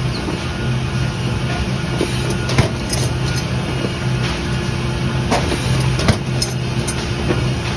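Factory stacking machine running with a steady low machine hum, broken by several sharp clacks from its mechanism as the carton stacks are moved.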